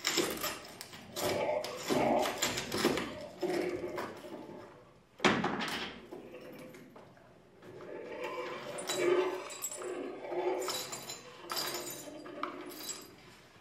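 A long pole is pressed and ground against miked cardboard and wooden boxes, making irregular amplified creaks, scrapes and clicks with short pitched groaning tones. A sharp, loud knock comes about five seconds in.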